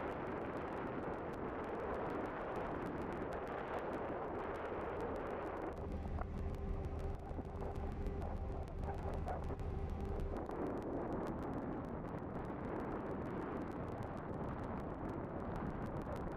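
Wind buffeting the microphones on the open deck of a moving car ferry, over the ferry's engine. For a few seconds in the middle the wind eases and a low engine hum with steady tones comes through, then the wind noise returns.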